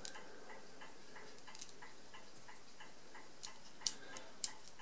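Faint, very even ticking, about three ticks a second, with two sharper metal clicks near the end as the calculator's number-wheel register is handled.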